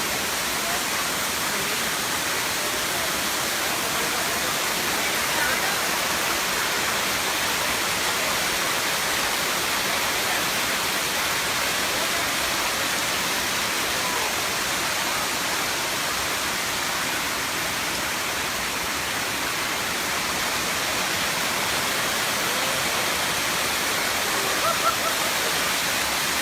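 Waterfall cascading, a steady dense rush of falling water.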